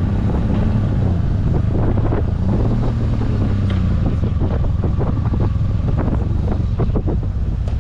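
Motorcycle engine running at cruising speed, its pitch rising and falling slightly, with wind buffeting the microphone.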